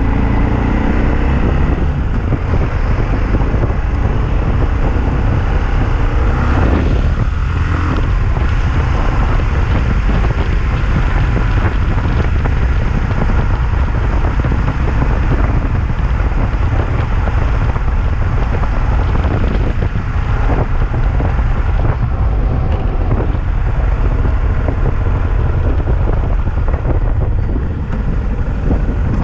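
Yamaha XT660Z Ténéré's single-cylinder engine running at road speed under steady wind noise, with scattered knocks and rattles from the Roncar aluminium top case, which is very noisy (muito barulho).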